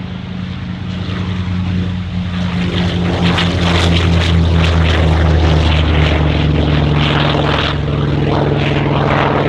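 Vought F4U Corsair's Pratt & Whitney R-2800 radial engine at takeoff power as the fighter lifts off and climbs past: a deep, steady propeller drone under a rough rasp, growing louder over the first few seconds.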